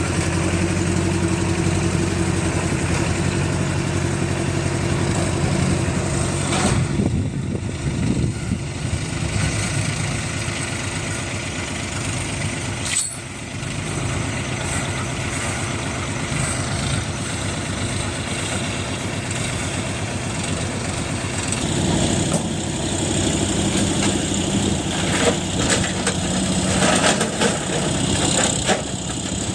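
Tata Hitachi TMX 20 excavator's diesel engine running continuously as the machine works. Its pitch shifts up and down with the load, with a brief dip about halfway through and a rougher, louder stretch near the end.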